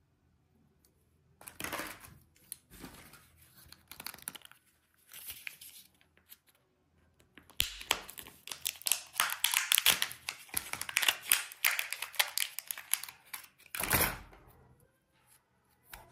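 A crinkly wrapper being peeled and torn off a surprise egg: a few short bouts of rustling, then a long, louder stretch of crackling and crinkling in the middle. A single knock comes near the end.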